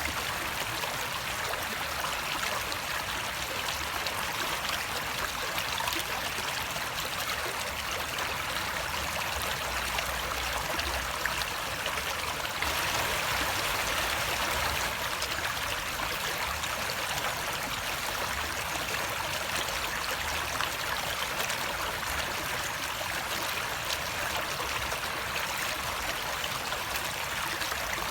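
Running water flowing steadily, an even rushing with a slight swell about halfway through.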